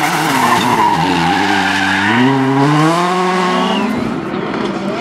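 Volkswagen Polo R WRC rally car's 1.6-litre turbocharged four-cylinder engine at full throttle, its pitch climbing steadily for about two seconds as the car accelerates, then dropping away about four seconds in.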